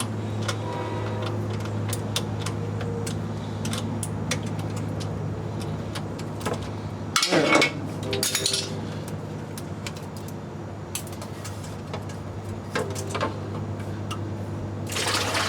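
Hand ratchet clicking and metal clinking while loosening the bolts of a transmission oil pan, over a steady low hum, with a brief louder noise about seven seconds in.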